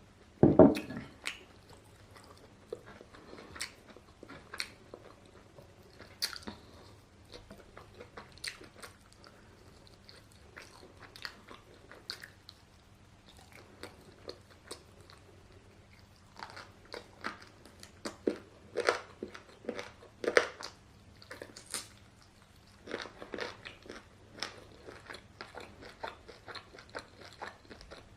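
Close-miked eating of crunchy fried food: repeated bites and chewing with crisp crackles, louder crunches in the second half, and a loud low thump about half a second in.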